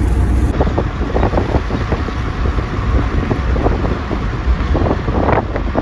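Wind rushing in through an open car window at road speed, buffeting the microphone with a heavy, uneven rumble over the car's road noise.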